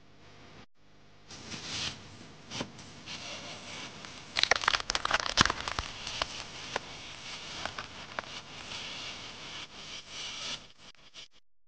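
Food being handled on a serving plate with gloved hands: rustling and scraping, with scattered sharp clicks and taps. The clicks crowd together about four to five and a half seconds in, and the sound stops shortly before the end.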